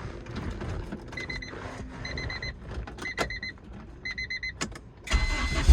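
Car's dashboard warning chime beeping in quick groups of about four, roughly once a second, with a few clicks. About five seconds in, the turbocharged Honda K-series engine cranks and fires on a cold start, its low rumble rising sharply near the end.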